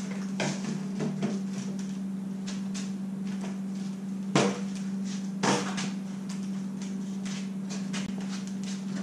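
Hollow knocks and clacks of PVC pipes and fittings being handled and pushed together, the two loudest about four and a half and five and a half seconds in, over a steady hum.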